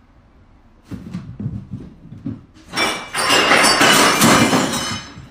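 A cat in a cardboard box thrashing about: a run of knocks and thuds against the box, then a loud burst of scraping and rustling for about two seconds.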